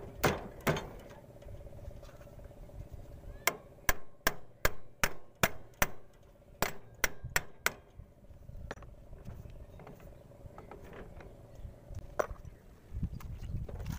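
Small hand hammer striking the clutch pulley of a power tiller with sharp metallic blows while the clutch release bearing is being fitted. A couple of blows come near the start, then a quick run of about a dozen at roughly three a second, and a single blow near the end.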